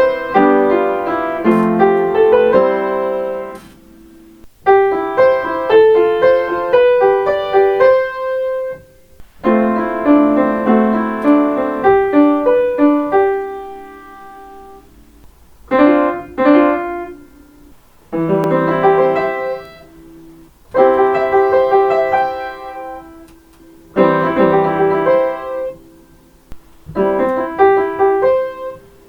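Solo piano playing train on-board chime melodies, transcribed by ear: about eight short phrases, each a few seconds long, one after another with brief pauses between them.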